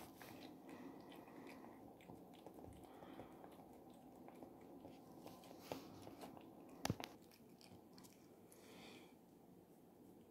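A cat eating from a plastic tray: faint chewing and mouth clicks throughout, with one sharp click about seven seconds in.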